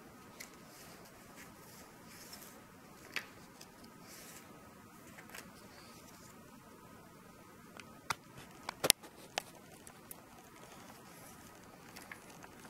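Quiet handling of a small picture book as its pages are turned: soft paper rustles and a few sharp clicks, the loudest in a quick cluster about eight to nine seconds in, over a faint steady hum.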